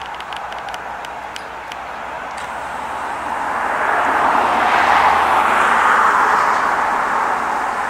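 A car driving past on a nearby street, its tyre and engine noise swelling to a peak about five seconds in and staying up.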